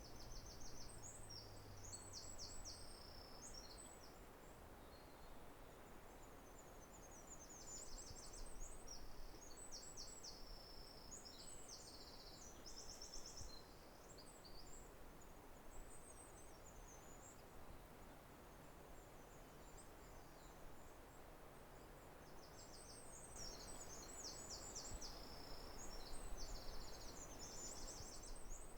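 Faint high-pitched songbird song: short trilled phrases, repeated in bouts with a pause of several seconds in the middle, over a soft steady background hiss.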